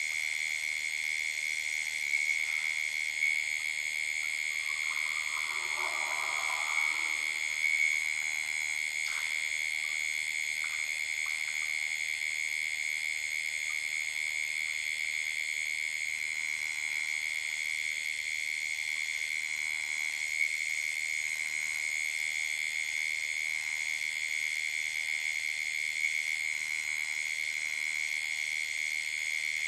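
Steady, high-pitched chorus of night-calling frogs and insects at a waterhole, an unbroken ringing drone. A short soft rush of noise comes about six seconds in, with a few faint knocks after it.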